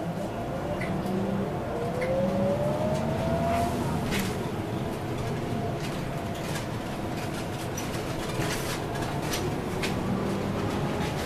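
Interior of a Scania OmniLink CL94UB city bus accelerating: a rising whine from the drivetrain over the first few seconds, then a steady running drone. Scattered sharp rattles and knocks come from the bus body and fittings.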